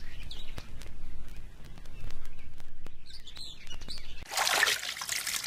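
Birds chirping over a low rumble, with a loud burst of rushing noise starting about four seconds in and lasting over a second.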